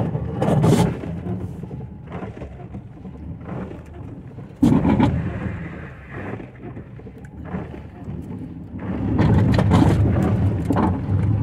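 Heard from inside the cabin of a Fiat Palio lowered on fixed suspension: a low rumble of the car running over a rough, wet dirt road, with irregular knocks and thumps as the stiff, low body jolts over the ruts. A sudden loud jolt comes about halfway through, and a run of heavy thumps near the end.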